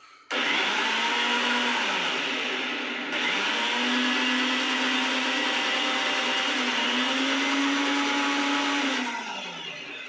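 Electric countertop blender running, churning banana and milk into a milkshake: it starts suddenly, gets louder about three seconds in, its motor note dipping and recovering as the load shifts, then is switched off about nine seconds in and winds down.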